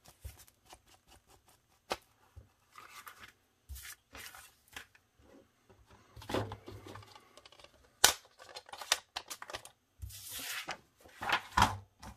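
Paper and cardstock being handled on a cutting mat: rustling and sliding sheets, with quick dabbing taps of an ink blending tool along an envelope's edges at the start and a sharp tap about eight seconds in.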